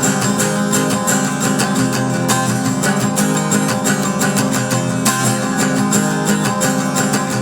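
Acoustic guitar strummed in a steady rhythm, playing the song's chords as an instrumental break.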